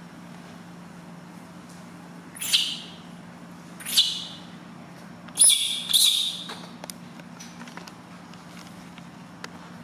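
Newborn baby monkey crying: four short, shrill, high-pitched cries, the last two back to back.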